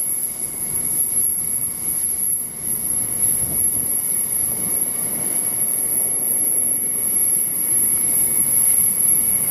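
Two oil-fired steam locomotives (Japanese-built Nos 824 and 850) standing with their burners going, giving a steady roar with a constant high-pitched whine over it.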